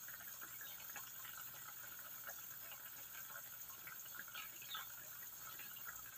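Broth simmering in a wok, faint scattered bubbling pops over a steady low hiss.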